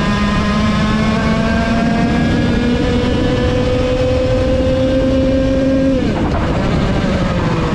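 Vortex VLR 100cc two-stroke kart engine heard onboard, climbing slowly in pitch at full throttle, then dropping sharply about six seconds in as the revs fall away.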